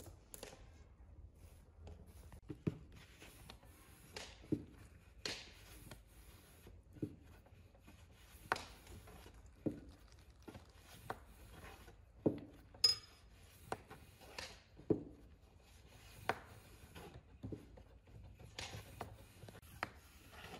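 Irregular light taps and clicks, about one a second, of a metal spoon against dough and dishes and of dough being worked on a wooden board while kutab are filled and shaped. One brief ringing clink of a dish comes just after the middle.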